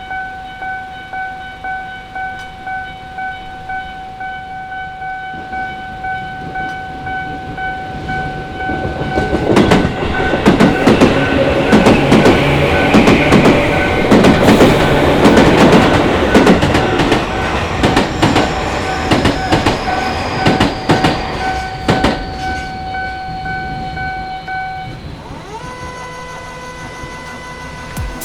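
Japanese railway level-crossing warning bell with an unusual tone, ringing in a steady repeating pattern. A Tobu Noda Line train passes over the crossing from about nine seconds in, its wheels clattering over the rail joints, and fades away. The bell stops near the end.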